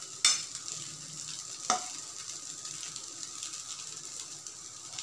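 Hakka noodles and vegetables sizzling in a nonstick frying pan over a gas flame while a steel slotted spoon stirs them. Two louder knocks of the spoon against the pan come, one near the start and one a little under two seconds in.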